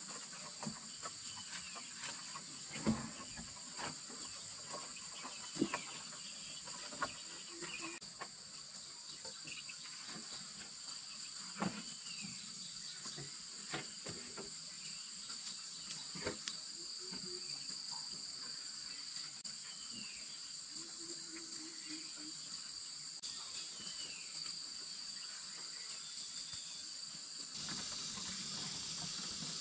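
Insects calling in a steady, high, continuous chorus, with scattered clicks and knocks and a few short chirps.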